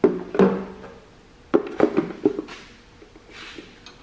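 A 5/8 wrench clinking and knocking on metal while a brass fuel fitting is snugged into a tractor carburetor. There is a sharp knock at the start and another just after, then a quick cluster of metallic knocks about halfway, followed by softer scraping.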